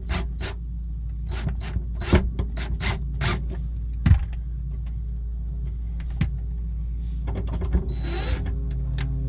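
Clicks and knocks of tools and an access panel being handled as the panel's two screws are taken out, over a steady low hum. The knocks are thick in the first few seconds and sparser later, with a brief rushing noise near the end.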